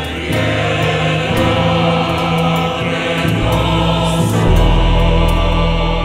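A mixed choir sings held chords with a small ensemble, and a lute is plucked. Deep bass notes come in about halfway through.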